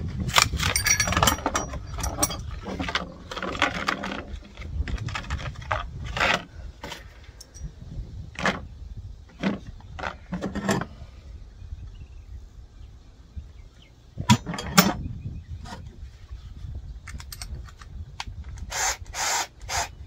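Stiff clear plastic packaging of a set of drill bits being crinkled, bent and torn open by gloved hands, with a run of sharp snaps and cracks as the plastic gives, the loudest about a quarter of a minute in. A steady low rumble runs underneath.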